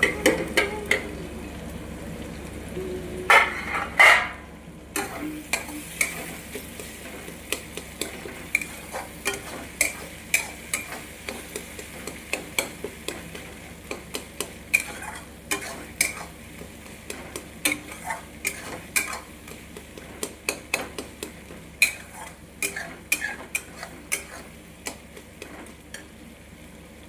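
Spoon scraping and clicking against a pan as food is stirred, one to two clicks a second, over a steady frying sizzle. Two louder metal clanks come about three to four seconds in.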